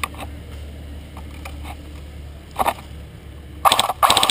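Airsoft rifle firing two short full-auto bursts near the end, each a fast run of sharp clicks, over a low steady rumble.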